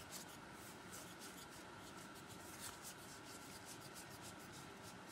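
Faint rustling and soft irregular ticks of stiff game cards sliding against one another as fingers flip through a stack.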